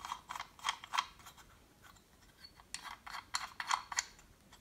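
Sharp little clicks and taps of small plastic and metal camera-mount parts being handled and screwed together: a cold shoe mount being threaded onto the mount of a Removu A1 wireless microphone receiver. The clicks come in two short runs with a pause in between.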